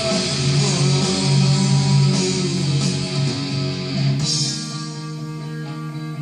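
A rock band plays a loud, heavy electric-guitar song live. About four seconds in, the full sound drops away, leaving electric guitar ringing on held notes.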